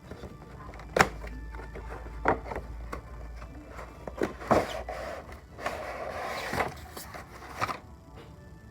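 A boxed diecast model car and its packaging being handled: several sharp knocks and clicks, with a stretch of scraping rustle about six seconds in.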